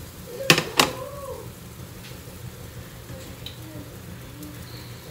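Two sharp knocks about a third of a second apart as a metal spatula strikes the pancake pan, over a faint frying sizzle and a steady low hum.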